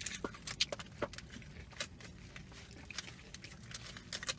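Close-up chewing and mouth sounds of people eating a chicken burrito and shrimp tacos: irregular wet smacks and clicks, over a low steady hum.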